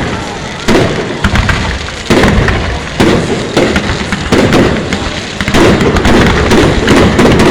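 Fireworks show: aerial shells going off one after another, a sharp bang every half second to a second with a rumbling tail, thickening into a dense, continuous barrage a little over halfway through.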